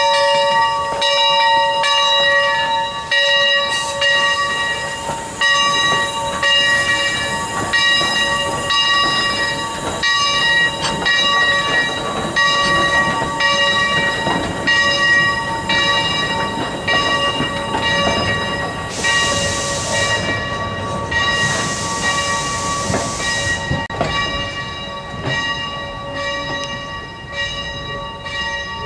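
Bell of a replica 4-4-0 American-type steam locomotive ringing steadily, struck over and over, fading near the end. Under it the passenger cars rumble along the rails, with two long hisses of steam about twenty seconds in.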